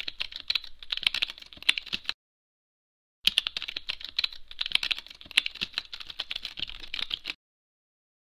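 Rapid keyboard typing clicks, used as a sound effect for text typing onto the screen. Two runs, about two seconds and about four seconds long, with a second-long pause between them; the typing stops about a second before the end.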